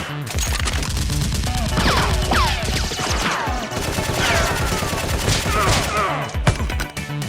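Rapid automatic gunfire, shots fired in dense volleys, with several short falling whistling tones over them.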